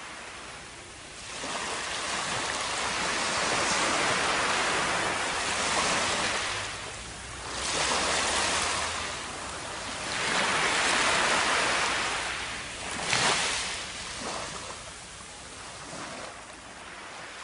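Shallow surf washing over a sandy beach: a hiss of water that swells and draws back about four times, then fades.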